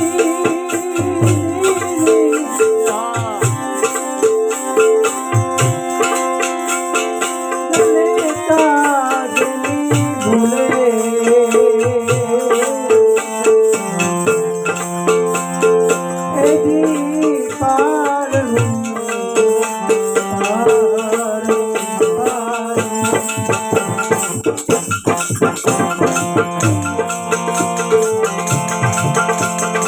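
Bhajan devotional music: steady held notes and a wavering melody line over low drum strokes and continuous rattling hand percussion.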